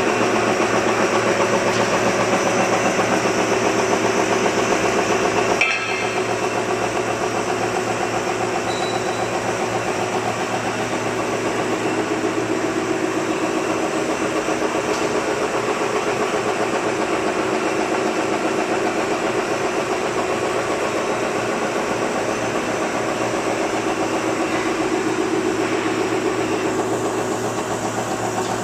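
Automatic napkin paper folding machine running steadily: a dense mechanical whir and fast, even rattle from its rollers and folding mechanism. The sound breaks off for an instant about six seconds in and continues slightly quieter.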